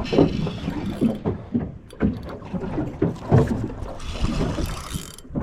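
Water slapping and lapping against the hull of a small fishing boat, with irregular low knocks and rumble. A hiss rises near the start and again about four seconds in.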